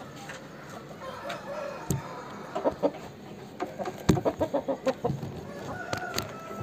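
Aseel chicken clucking: a quick run of short clucks between about two and five seconds in, with a few sharp clicks among them.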